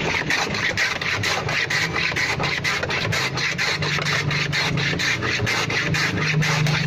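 Rhythmic rasping scrape repeating about four to five times a second over a steady hiss, stopping abruptly near the end.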